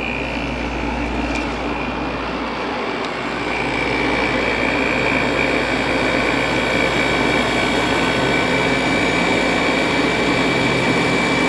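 1970s Thomas Edison 6000 BTU window air conditioner running on low cool: the blower fan runs steadily with a high whine, and about four seconds in the sound gets louder as the compressor comes on, running very quietly.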